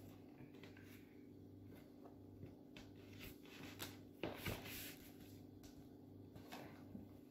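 Near silence over a low steady room hum, with a few faint taps and rustles of Uno playing cards handled and laid down on a table, the clearest a little over four seconds in.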